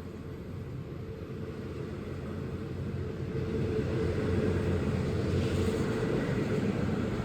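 Low rumble of a train, growing steadily louder over the first four seconds or so, then holding steady.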